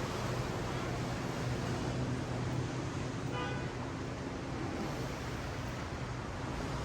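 Ocean surf washing on a sandy beach as a steady rush, with a low steady hum underneath. A brief pitched call sounds once, about three and a half seconds in.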